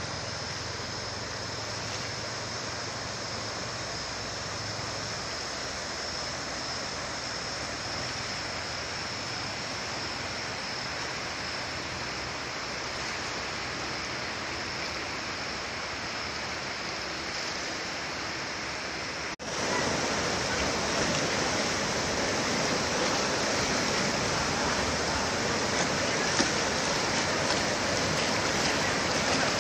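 Steady rushing of the Chenab river in flood, its swollen, fast-running water above the danger mark. About two-thirds of the way through there is a sudden cut, and after it the rush is louder.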